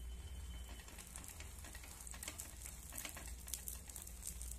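Egg omelette sizzling and crackling in oil on a hot flat iron griddle, a steady fine hiss with scattered pops, over a low steady hum.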